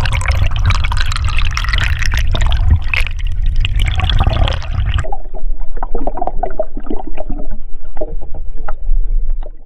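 Water rushing and churning against a GoPro camera held just under the river's surface, with a heavy low rumble. About five seconds in it changes abruptly to a duller underwater crackling and bubbling.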